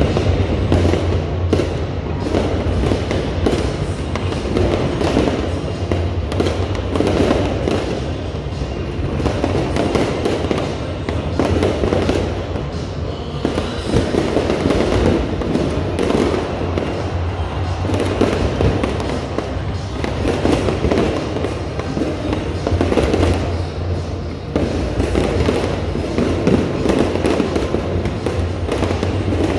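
Aerial fireworks bursting in a continuous barrage, dense bangs and crackles one after another, with music playing underneath.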